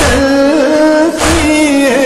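A noha, a Shia lament in Urdu, sung in long held, wavering notes over a slow, heavy beat that falls about every 1.2 seconds.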